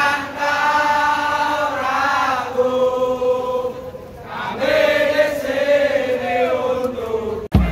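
Many male voices singing a football supporters' chant in unison, in two long drawn-out phrases with a short dip between them; it cuts off suddenly near the end.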